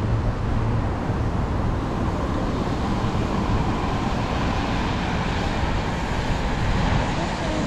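Steady city street traffic noise: a continuous din of vehicles with no single event standing out.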